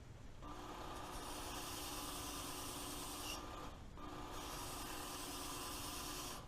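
Work Sharp Ken Onion Edition electric belt sharpener running in two bursts of about three seconds each, a steady motor whine with the hiss of the abrasive belt, stopping briefly between them and cutting off suddenly at the end.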